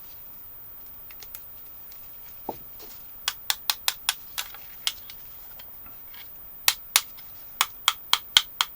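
Sharp clicks of 18650 lithium-ion cells being handled and knocking against one another, in two quick runs: several clicks about three to five seconds in, then a faster, louder run of about eight near the end.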